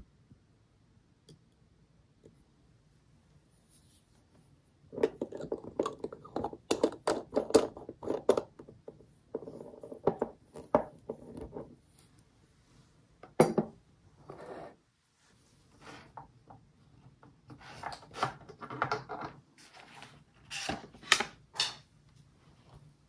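Clinks, knocks and rustles of a square glass ink bottle and its cap being handled and cleared off a wooden desk. They start about five seconds in, after a quiet opening, and are thickest in the next few seconds.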